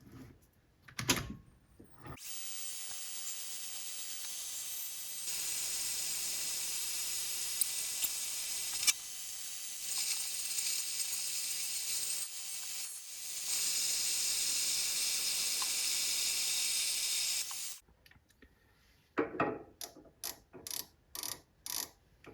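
Mini lathe running and taking a cut on a turned shaft: a steady high whine that steps louder twice, then stops suddenly about 18 seconds in. A run of short knocks follows near the end.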